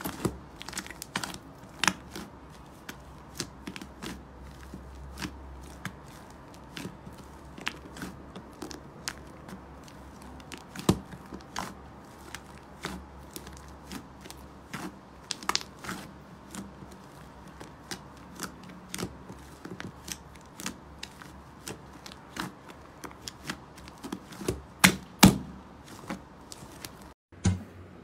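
Thick white slime with small blue beads being squeezed, stretched and pressed by hand in a plastic tub: irregular sticky clicks, crackles and pops, with a few louder pops near the end.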